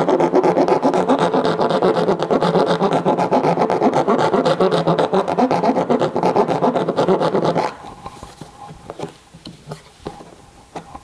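A rat-tail file rasping around inside a half-inch hole in a plastic 5-gallon bucket, the hollow bucket giving the fast scraping a steady droning pitch; it is enlarging the drilled hole a little so the filter stem fits. The filing stops suddenly about two-thirds of the way through, leaving faint handling clicks.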